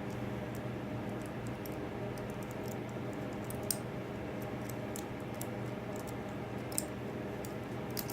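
A few sharp, scattered metal clicks as small tailstock parts and a hex wrench are handled during mini-lathe assembly, over a steady low hum.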